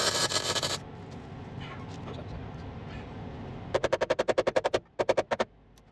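MIG welder crackling on the steel sill for under a second at the start. Then rapid light hammer taps on the sheet metal, about a dozen in a second, a short pause, and four more.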